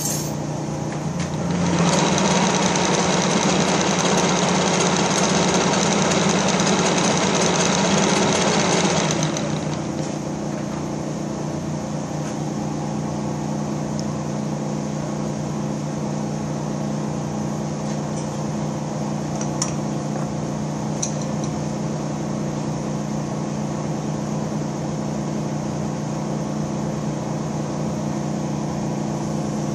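A 1942 Giddings & Lewis Model 25 horizontal boring machine running with a steady motor hum. From a second or two in, a louder, rougher mechanical whirr runs for about eight seconds, then drops back to the hum while the spindle is being indicated in on the rear main bore.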